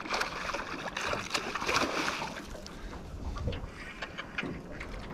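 A hooked trevally thrashing and splashing at the surface beside the boat, loudest over the first two seconds and then easing off.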